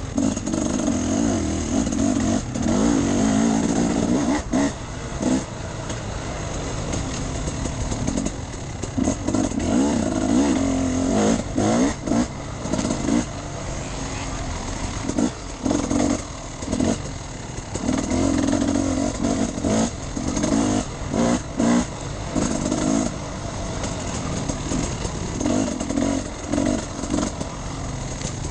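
Enduro motorcycle engine being ridden off-road, its note rising and falling with the throttle over stretches of a few seconds and dipping sharply for brief moments many times.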